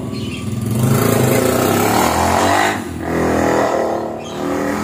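A motor vehicle engine revving, rising and falling in two loud swells: a longer one of about two seconds, then a shorter one.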